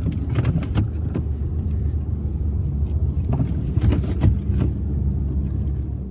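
Pickup truck engine running steadily as the truck tries to drive out through deep snow, with scattered knocks and crunches over it.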